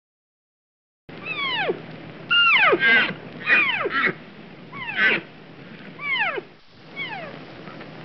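An animal's calls, repeated about eight times, each a short cry sliding steeply downward in pitch. They begin abruptly about a second in after dead silence.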